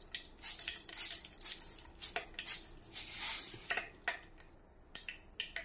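Mustard seeds dropped into hot cooking oil, crackling with scattered sharp pops as they start to splutter, with a brief sizzle a little past the middle.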